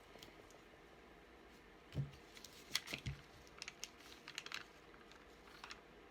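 Paper and sticker sheets being handled: a few light taps and soft crinkles, the loudest two about two and three seconds in, then a quick run of small clicks.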